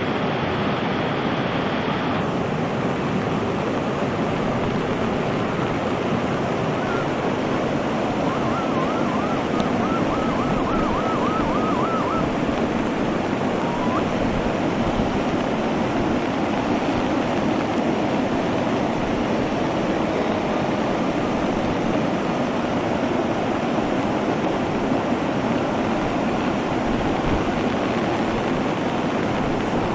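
Poonch River in flood: a steady, loud rush of floodwater.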